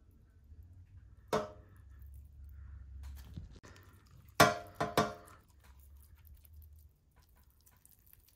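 Plastic squeeze bottle of liquid dye squirting and sputtering as air spits through the nozzle: one short pitched squeak about a second in, then three quick ones in a row around the middle.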